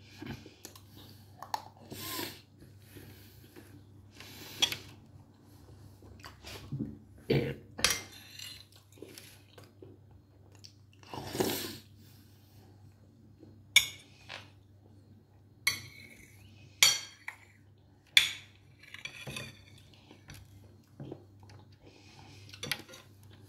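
Cutlery clinking and scraping against a plate during a meal, with chewing between the strokes; scattered short, sharp clinks, the sharpest in the second half.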